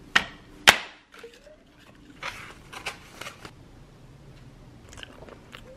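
Takeout food being handled. Two sharp clicks within the first second as a straw is jabbed through a bubble tea cup's sealed plastic lid, then light rustling and small clicks of foam containers and packaging.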